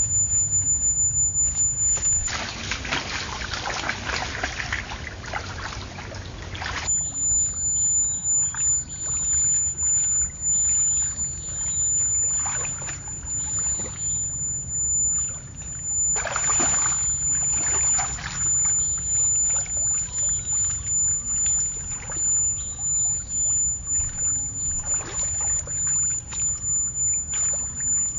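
Water splashing and sloshing in quick repeated strokes, over a steady low hum; a longer, rushing splash about two seconds in lasts a few seconds.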